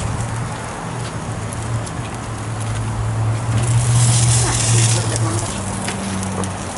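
Burger, veggie dogs and vegetables sizzling on a foil-lined gas grill, with a metal spatula scraping and clicking against the foil. The sizzle swells about four seconds in as the burger is lifted, over a steady low hum.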